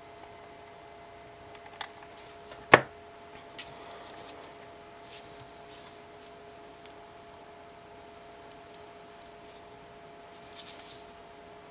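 Ribbon pieces being handled and pressed together: scattered small clicks and rustles, with one sharp knock about three seconds in and a brief patch of rustling near the end. A faint steady hum runs underneath.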